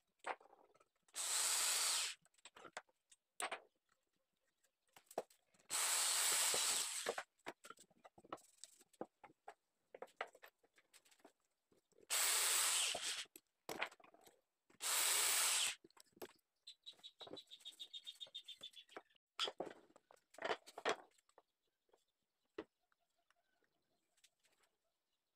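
Power drill driving screws into wood, in four short runs of about a second each. Later comes a quick run of clicks, then a few knocks.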